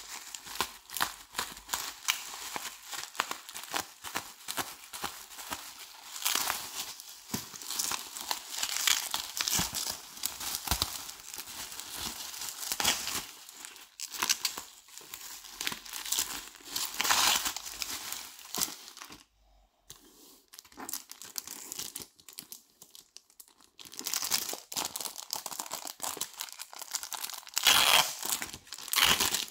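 Bubble wrap and plastic packaging crinkling, rustling and tearing as it is unwrapped by hand. The noise is dense and irregular, drops away for a few seconds a little past the middle, then comes back loud near the end.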